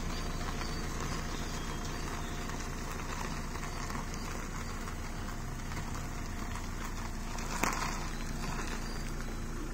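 A compact SUV's engine idling steadily as the car creeps backward on the clutch alone, with no accelerator applied. A single sharp click near the end.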